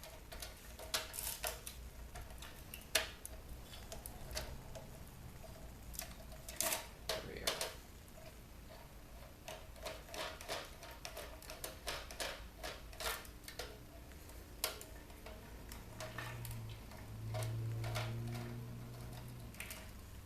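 Irregular clicks, taps and clinks of a bug zapper's metal and plastic parts being handled and worked apart. A low hum rises and fades briefly near the end.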